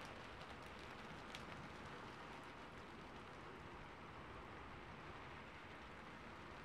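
Quiet, steady rain: an even hiss with faint, scattered drop ticks.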